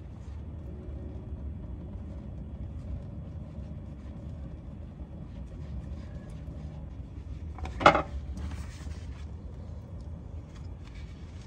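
Spin-on oil filter being unscrewed by hand from underneath a Ford Crown Victoria, over a steady low rumble. One sharp knock comes about eight seconds in, followed by about a second of hiss.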